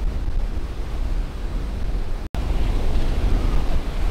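Ocean surf: a steady wash of breaking waves with heavy wind rumble on the microphone. The sound cuts out completely for an instant about halfway through.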